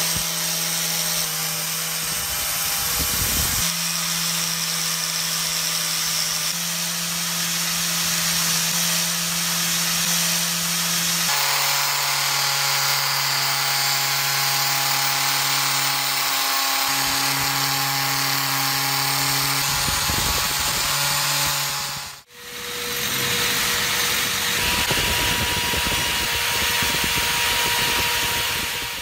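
Electric angle grinder spinning a wire cup brush against rusty steel, scrubbing off rust: a steady motor whine over the scratchy hiss of the wire bristles. It stops abruptly about 22 seconds in. A drill spinning a small wire wheel against a rusty cast knob then takes over, with a different, steady whine.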